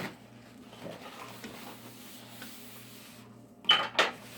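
Household handling noises: a short knock at the start, then two loud, short clattering noises about a third of a second apart near the end, the first with a brief squeak, over a low steady hum.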